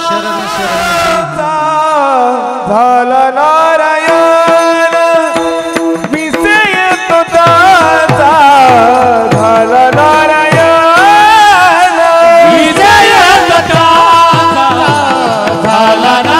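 Warkari bhajan music: a chorus of men singing over a steady drone, with regular drum strokes and small brass hand cymbals (taal) keeping the beat.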